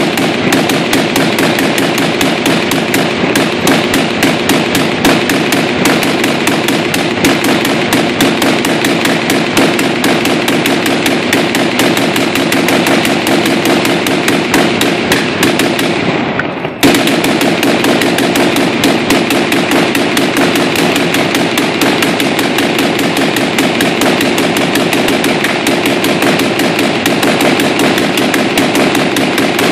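Hand-cranked Gatling gun firing blanks in a long continuous rapid burst, with a brief break a little past halfway before firing resumes abruptly.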